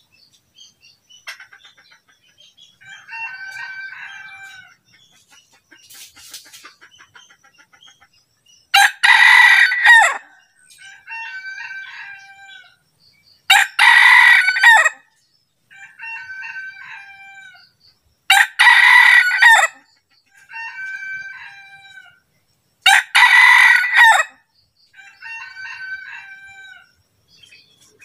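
Red junglefowl roosters crowing back and forth. One close, loud crow comes four times, about every four to five seconds, and fainter crows from another rooster answer in between.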